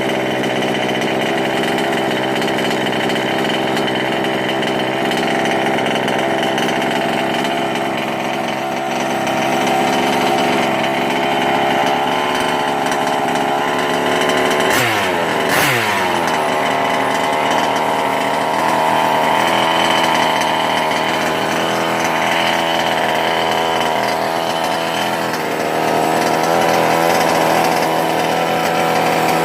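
A 1/5-scale RC car's small two-stroke gas engine running steadily after being cleared of flooding. Its pitch sweeps briefly down and back up once about halfway through.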